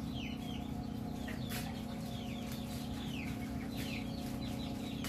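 Chickens peeping: a steady run of short, high chirps, each falling in pitch, several a second, over a steady low hum.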